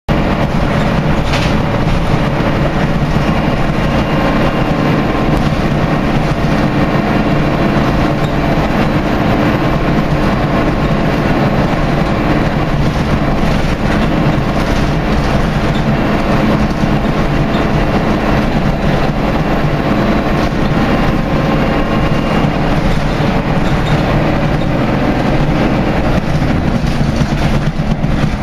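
Scania L113CRL single-deck bus under way, heard from inside the saloon: the rear-mounted six-cylinder diesel runs steadily under road noise, with scattered rattles from the body and fittings.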